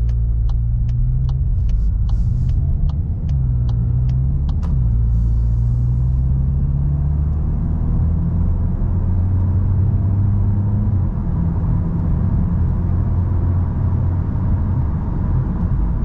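In-cabin sound of a stock 2022 VW Golf GTI's 2.0-litre turbocharged four-cylinder accelerating briskly from a pull-out, the engine note climbing and dropping back as it shifts up through the gears: a low hum, with tyre and road noise. A rhythmic ticking, about two to three clicks a second, like a turn signal, runs for the first five seconds.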